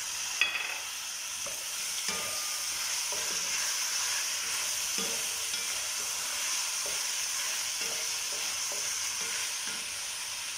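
Chicken pieces and diced tomatoes frying in a pan with a steady sizzle, stirred with a wooden spatula that scrapes and knocks against the pan every second or so.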